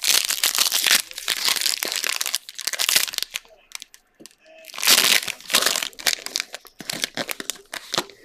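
Foil wrapper of a Panini Mosaic football card pack crinkling as it is handled and torn open by hand. It crinkles loudly for about three seconds, then again about five seconds in, with lighter rustling between.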